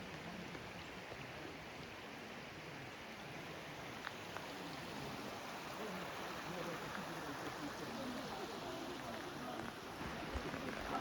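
Steady rushing noise with faint voices in the background.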